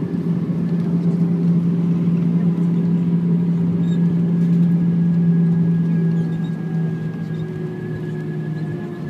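Cabin sound of an Airbus A320-214 with CFM56 engines slowing on the runway after touchdown: a loud, steady drone with a higher whine over it, easing off about six seconds in as the aircraft decelerates.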